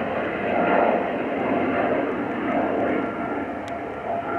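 Embraer E195-E2 airliner climbing out after takeoff, its Pratt & Whitney PW1900G geared turbofan engines making a steady rushing noise with a faint hum through it, swelling and fading slightly.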